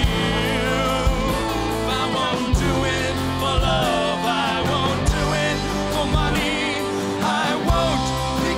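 Acoustic folk band playing live: a man singing over a strummed acoustic guitar, with steady bass notes underneath.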